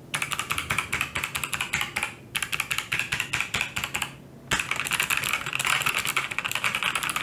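Fast typing on a TVS Gold Pro mechanical keyboard with clicky Kailh Box White switches: a dense run of sharp key clicks, broken twice by brief pauses.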